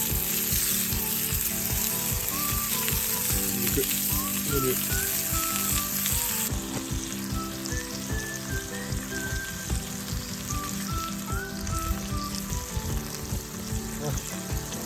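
Meat frying in a hot pan with a steady sizzle; the high part of the sizzle drops away about six and a half seconds in.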